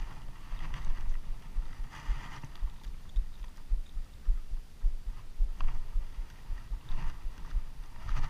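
Irregular low rumbling thumps of wind and handling on an action camera's microphone, with a few faint short rustles and taps.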